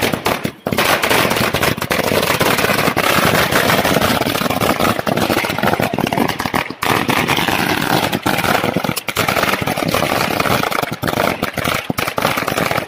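A long string of firecrackers laid along the road going off in a rapid, continuous crackle of bangs.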